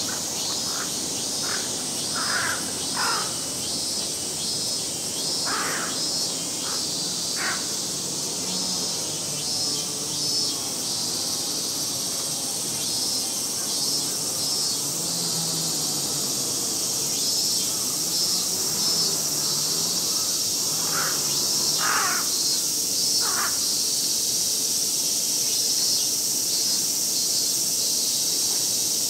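A steady summer chorus of cicadas shrilling in the temple trees, with a pulsing, rhythmic texture in the buzz. A few short bird calls break in, in two clusters: a few seconds in, and again about three-quarters of the way through.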